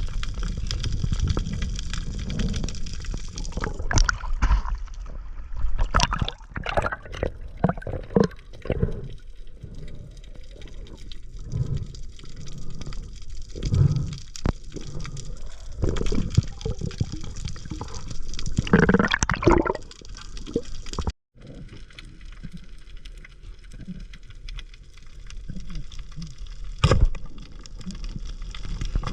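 Water sloshing and gurgling in irregular bursts, with a brief break about two-thirds of the way through.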